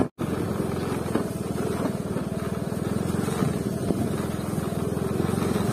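Yamaha Ray ZR scooter's single-cylinder engine running steadily under way, with a rapid, even putter.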